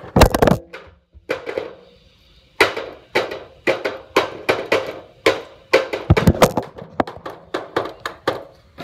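Handling noise from the recording phone as it is moved about: a string of irregular knocks, taps and scrapes, with short pauses about a second and two seconds in.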